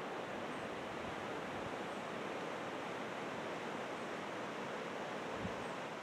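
Steady, even rushing of a mountain river or stream, with no gusts or breaks.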